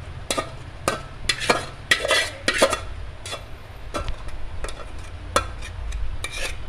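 Spoon scraping thick, reduced rabri out of a cooking pot into a glass bowl: a dozen or so irregular scrapes and light knocks against the pot, over a low steady hum.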